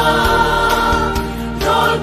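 Church choir singing a Darlong gospel song with accompaniment, holding a long chord that eases off near the end.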